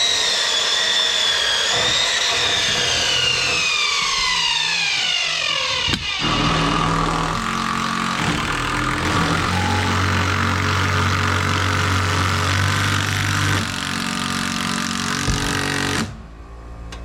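Power saw motor running: it whines at full speed and then winds down in a long falling pitch over the first six seconds. Then another stretch of steady machine noise runs and cuts off abruptly about 16 seconds in.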